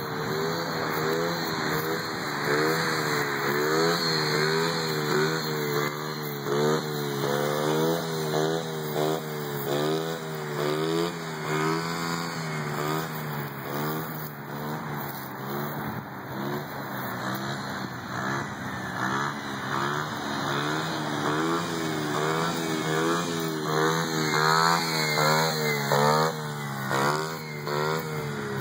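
Small dirt bike's engine revving up and down over and over as the throttle is opened and closed, its pitch rising and falling in quick swings.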